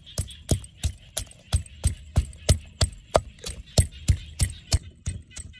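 Wooden pestle pounding garlic and red chilies in a clay mortar, a steady rhythm of dull knocks about three times a second.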